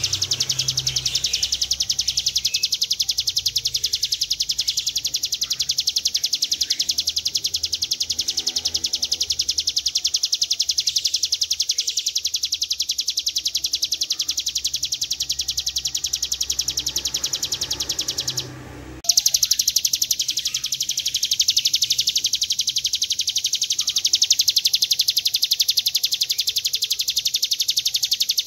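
Ciblek gunung, a prinia, singing a long 'ngebren' song: a very fast, drill-like trill held almost without pause. The trill breaks off briefly about two-thirds of the way through, then carries on.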